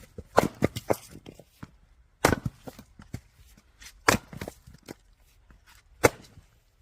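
Firewood being split: four sharp, hard blows about two seconds apart, each followed by a short clatter of smaller knocks as the wood gives way and the pieces fall.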